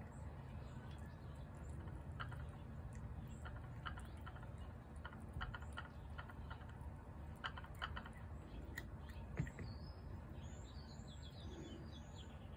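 Faint outdoor ambience with a steady low rumble and scattered soft clicks, and a small bird chirping a quick run of high, pitch-sweeping notes about three-quarters of the way through.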